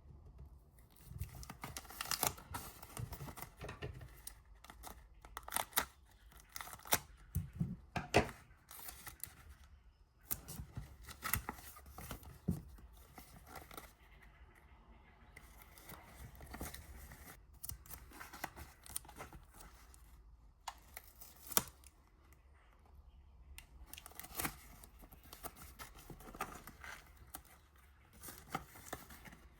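Paper and sticky tape being handled while making a paper squishy: an irregular run of snips, rips and rustles, some sharp and close together, with quieter stretches between.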